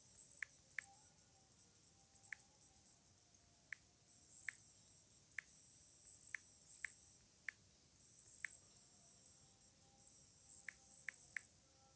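Short key-press clicks from typing on a tablet's on-screen keyboard, about fourteen at an irregular typing pace, with some quick pairs and runs.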